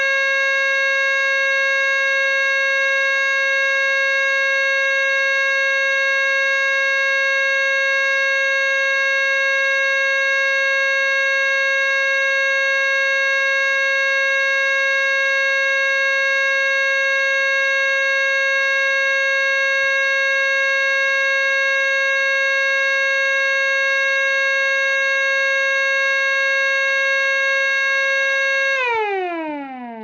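Small tabletop 10-port siren, run by an electric motor, holding one steady tone at full speed. Near the end it is switched off and winds down, its pitch falling as it fades away.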